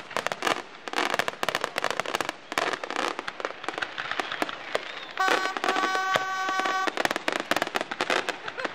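Fireworks display: a dense, continuous run of sharp cracks and bangs from bursting aerial shells. A steady high-pitched tone sounds over them for about two seconds, a little past the middle, and briefly again near the end.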